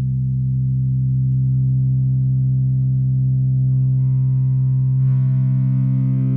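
Modular synthesizer drone from two oscillators, a pulse and a ramp wave, played through a Yusynth Minimoog ladder-filter clone. The tone is a steady, dull low drone with the filter nearly closed, and it starts to brighten about four seconds in as the filter is opened.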